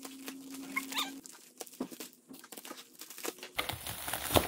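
Scissors snipping and crinkling through a plastic mailing envelope, then the envelope torn and pulled open by hand, with louder rustling and ripping of plastic in the last second.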